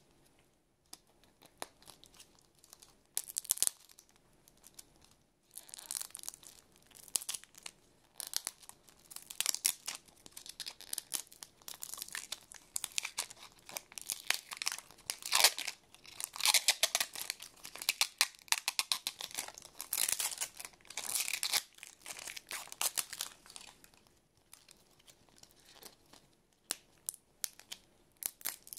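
Plastic wrapper film being picked at, torn and peeled off a capsule toy ball, crinkling in irregular bursts. It starts with scattered small clicks and crinkles, grows into steady, dense tearing and crinkling after about five seconds, then thins out again near the end.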